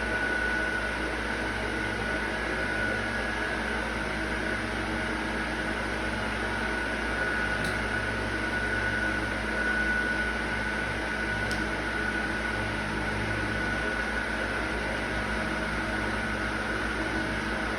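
Steady machine hum with a constant high whine, like a running fan or air conditioner, and two faint ticks in the middle.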